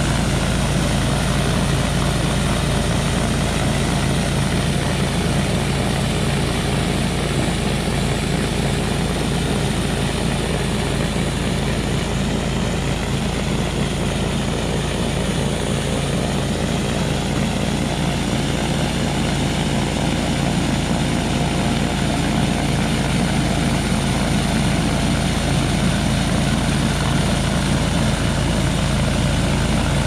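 Honda HSS928 two-stage snowblower's single-cylinder engine running steadily under load while its auger and impeller throw heavy wet snow and slush. It grows a little fainter midway as the machine moves off, then comes closer again.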